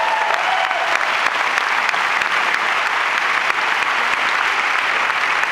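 Large audience applauding, a dense steady clapping.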